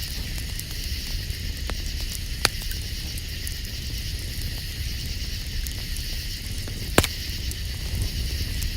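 Campfire crackling, with two sharp pops about two and a half and seven seconds in, over a steady chorus of night insects.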